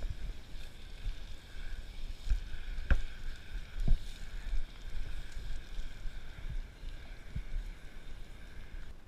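A hose-fed scrubbing brush working over wet wooden decking, with water running through it and a low rumble of handling and wind on the microphone. Two sharp knocks stand out about three and four seconds in.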